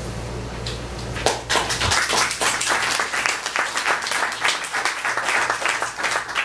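Audience applauding, breaking out about a second in and running on as a dense patter of clapping.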